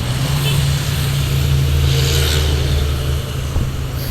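Heavy diesel truck engine running with a steady low drone, with a brief hiss about two seconds in.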